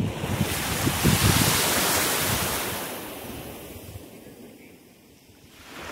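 A small wave washes up the sandy shore. Its hiss swells about half a second in, then fades away over several seconds. Wind buffets the microphone in the first couple of seconds, and another wash starts right at the end.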